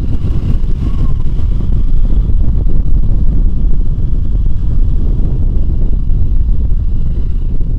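Wind buffeting the microphone over the running single-cylinder engine of a Royal Enfield Himalayan motorcycle under way, a loud, steady low rumble.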